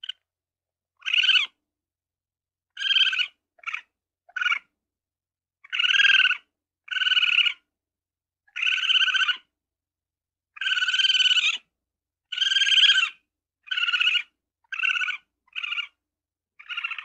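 Ferret calling in a string of about a dozen short calls, unevenly spaced, each a fraction of a second to about a second long.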